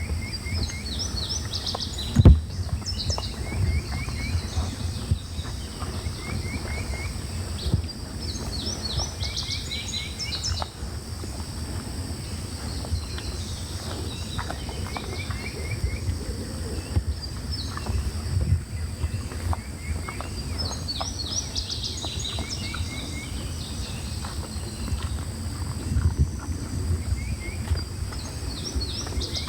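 Outdoor ambience: a songbird repeats the same short song of quick high descending chirps every several seconds over a steady low rumble. A sharp click about two seconds in is the loudest sound.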